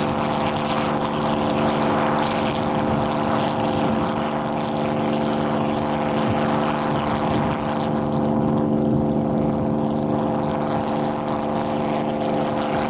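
P-51 Mustang's Merlin V-12 engine running at a steady speed with its propeller turning, an even drone that holds one pitch throughout as the fighter taxis.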